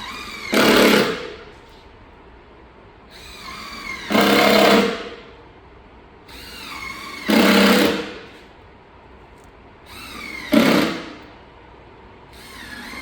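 Power drill driving screws through a PZ2 bit into the racking panels, four times about three seconds apart. Each time, a brief motor whine winds up and then a louder burst of about a second follows as the screw runs in.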